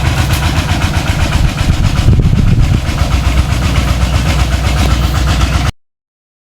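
Engine of a water pump running steadily, draining a pond. It cuts off abruptly near the end.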